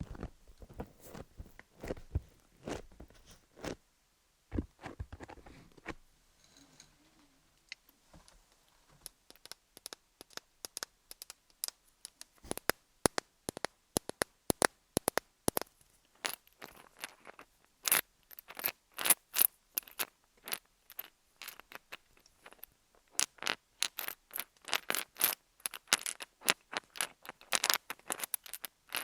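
MTS microneedling roller rolled over a mannequin head covered in glued-on rhinestone gems: a dense run of sharp, irregular clicks and ticks. The clicks thin out about a quarter of the way through, then come back louder and denser.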